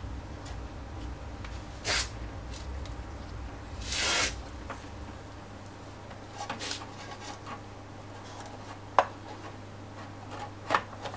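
Handling noises as an Xbox One's metal-cased optical disc drive is set down into the console chassis: short rubbing and scraping sounds, then two sharp clicks near the end as the drive meets the metal frame.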